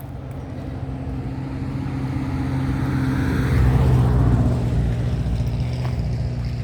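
An engine running with a steady low hum, swelling to its loudest about four seconds in and then easing off a little.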